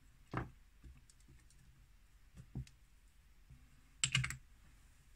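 Light handling of small makeup containers and tools on a table: a few soft taps and knocks, then a quick cluster of sharp clicks about four seconds in.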